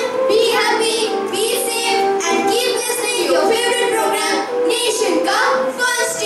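Children, a girl and a boy, singing a song into handheld microphones over musical accompaniment.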